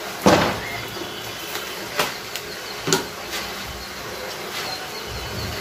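Small handling sounds of a spoon and a yeast packet: one sharp knock about a quarter second in, then a few lighter clicks and taps.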